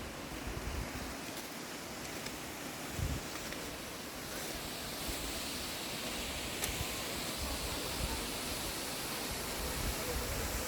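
Steady rushing outdoor noise of a distant waterfall and wind, with gusts of wind buffeting the microphone now and then.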